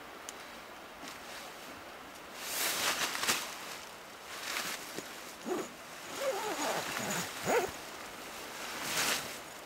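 Rustling in dry leaves and tent nylon, coming in bouts. Short wavering vocal sounds come in the middle, a few rising and falling glides.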